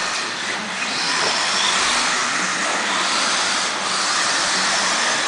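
Electric radio-controlled off-road buggies racing on an indoor dirt track: a steady whine and hiss of motors, gears and tyres.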